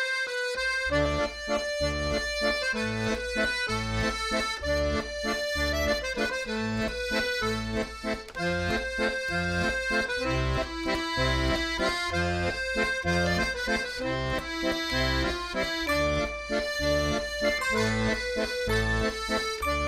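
Instrumental accordion music with a steady, repeating bass rhythm under a sustained melody.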